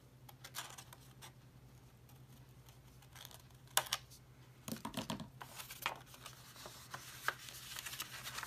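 Paper being handled and worked on a table: irregular rustles and crisp taps, the sharpest about four seconds in and busier after about five seconds.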